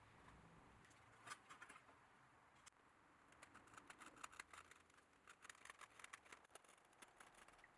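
Near silence, broken by faint, scattered light scratches and ticks of a pencil tracing a line on a model kayak's wood-veneer deck.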